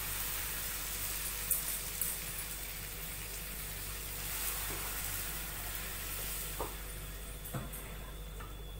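Chopped onions frying in oil in a nonstick pan, sizzling steadily as blended tomato is poured in and stirred with a wooden spatula, with a few short knocks of the spatula.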